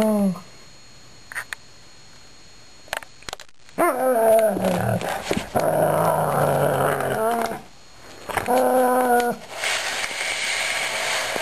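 Airedale terrier growling and grumbling in play as it chews a ring toy: a long, wavering growl about four seconds in and a shorter one near nine seconds, followed by a breathy hiss near the end.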